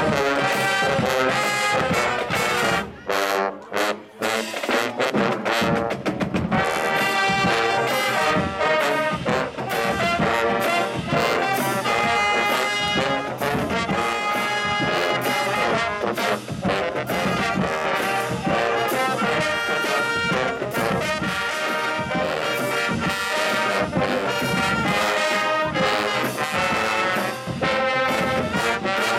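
Marching band's brass section playing a loud tune, with a short break about three seconds in before the full band comes back in.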